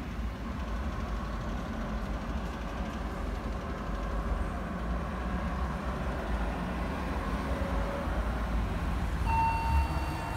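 Steady rumble and noise of road traffic. About nine seconds in, a level crossing's electronic warning tone starts, a steady beeping while the barriers are down.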